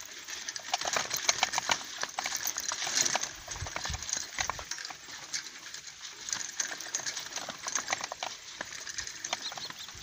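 Rapid, irregular clicking and rustling from a bicycle being pushed on foot along a rough, grassy path, with a few low thumps about four seconds in.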